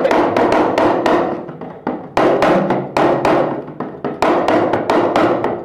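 Yoruba àdàmọ̀ (gángan) hourglass talking drum played with a curved stick: a quick rhythmic run of sharp, pitched strokes.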